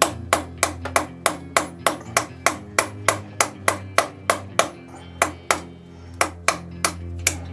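Hammer blows on a drift, driving a new steering-head bearing race into the frame headstock of a Kawasaki ZZR 1100: a steady run of sharp strikes, about three a second, with a short pause about three-quarters of the way through. Background music plays underneath.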